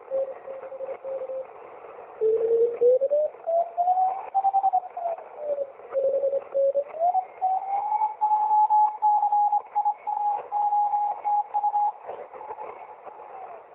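Shortwave radio reception of a single whistling tone that holds one pitch for a while, then glides up or down to another and holds again. It cuts in and out with the fading of the signal, with static crackle over it and the narrow, tinny sound of a receiver's audio.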